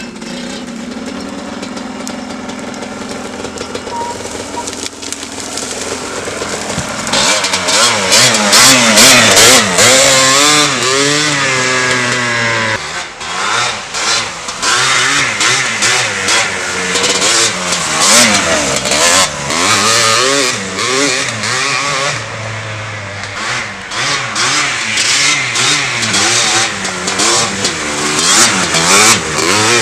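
Yamaha Blaster's single-cylinder two-stroke engine through an FMF exhaust pipe, running fairly steadily at first. From about seven seconds in it gets much louder and is revved over and over, its pitch rising and falling as the quad is ridden on and off the throttle.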